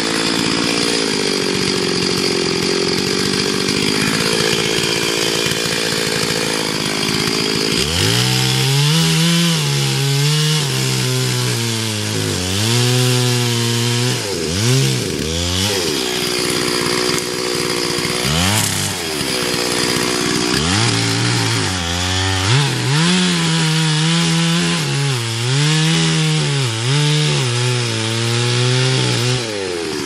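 Two-stroke chainsaw running at high revs and cutting wood. Its engine note rises and sags again and again as the throttle and the load of the cut change, with a few brief deep dips.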